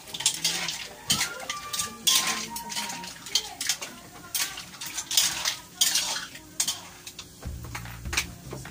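Metal spatula scraping and clanking against a large metal wok in repeated strokes, stir-frying mussels, squid, shrimp and chopped bell pepper, with a light sizzle underneath.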